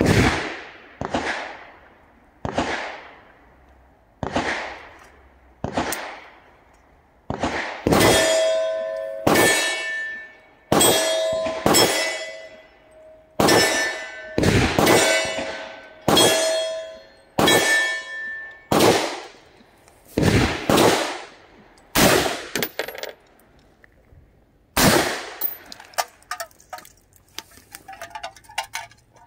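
Del-Ton Sierra 316 AR-15 rifle firing single aimed shots, about eighteen of them one to two seconds apart, each echoing away. Through the middle stretch many shots are followed by a metallic ring, and a few small clinks come after the last shot.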